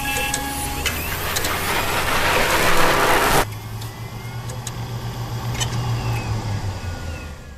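Electronic intro sound design. A noise swell builds and cuts off abruptly about three and a half seconds in, giving way to a low steady hum with scattered clicks and faint sliding blips.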